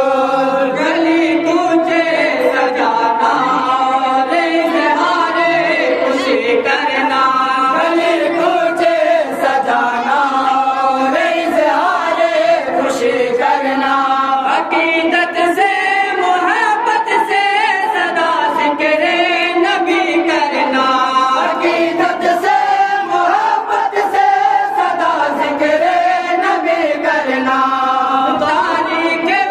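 A group of men singing a devotional naat together in unison, unaccompanied, in a steady chanted melody of long held phrases.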